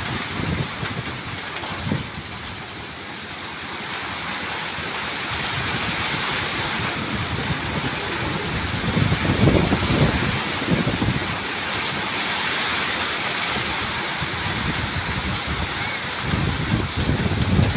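Heavy typhoon rain pouring steadily with strong wind. The wind buffets the microphone in gusts around the middle and again near the end.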